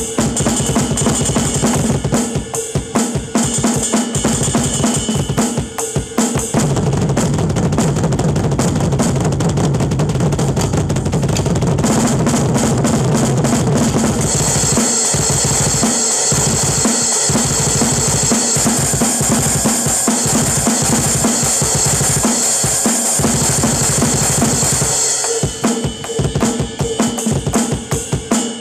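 Acoustic drum kit played fast and hard in a drum solo, with snare, toms and bass drum. From about six seconds in, the low drumming runs on without a break. From about halfway until near the end, cymbals wash continuously over it, and then the playing returns to separate, gapped strokes.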